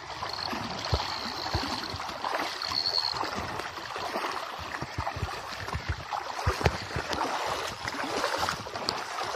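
Feet wading through shallow lake water, sloshing and splashing in an irregular run of steps.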